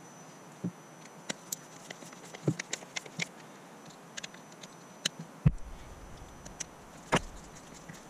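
Irregular small clicks and knocks of hard plastic parts being handled, and a screwdriver working, as a car door's window-switch panel is screwed into its armrest trim piece. One sharper knock comes about five and a half seconds in.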